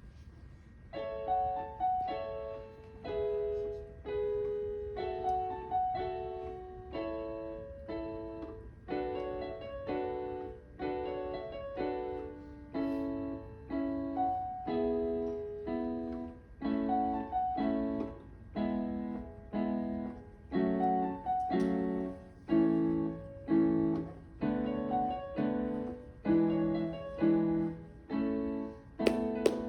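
Piano playing a slow run of chords, about one a second, starting about a second in; from about halfway the chords sit lower and fuller. Quick sharp taps start right at the end.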